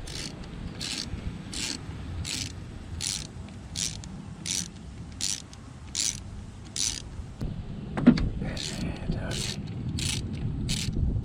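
Hand ratchet wrench worked in steady strokes on the engine's bolts, its pawl clicking in a short burst about three times every two seconds, with one sharp knock about eight seconds in.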